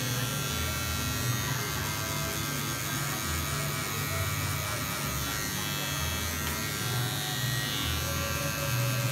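Electric hair clippers running steadily as they cut short hair on the back and side of a head.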